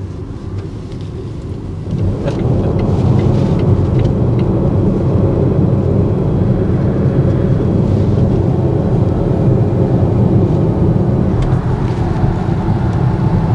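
Tyre and road noise heard inside the cabin of an electric Volvo XC40 Recharge at highway speed, a steady low rumble with no engine note, which grows louder about two seconds in and then holds even.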